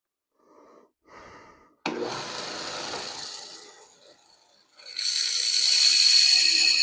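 Power grinder grinding the steel of a knife blade to cut its edge bevels: a sudden start about two seconds in that fades, then louder steady grinding with a high whine from about five seconds in.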